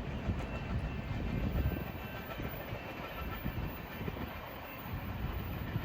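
BNSF freight train rolling past: a steady low rumble of the cars with irregular knocks and clatter from the wheels on the rails.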